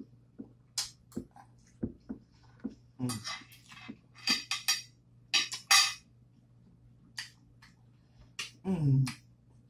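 Eating crunchy cheese crackers and salad: clusters of crisp crunching bites in the middle, with light clicks and clinks of a utensil against the dish. Near the end comes a short hum falling in pitch.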